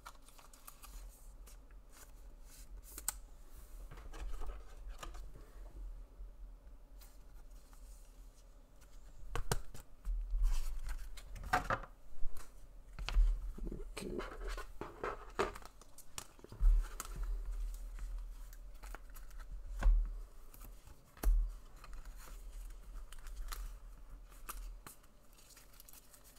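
Trading cards and their packaging handled on a tabletop: irregular scratchy sliding, scraping and clicks, with several soft knocks, busier from about ten seconds in.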